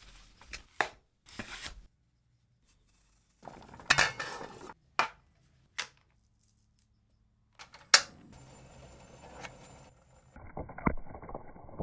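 Cookware and utensils clinking and knocking during kitchen prep, in short separate bits with sharp knocks about four, five, six and eight seconds in and dead silences between them.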